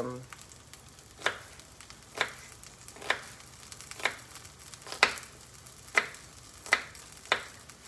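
Knife chopping a yellow onion: eight separate sharp strokes, about one a second, over a faint steady sizzle of vegetables sautéing in a pan.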